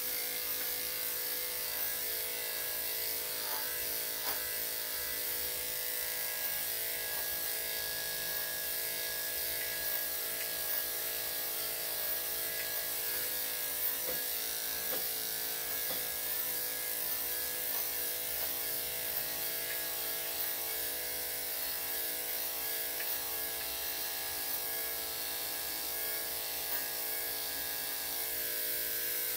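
Corded electric dog grooming clippers running steadily as they clip through a dog's coat.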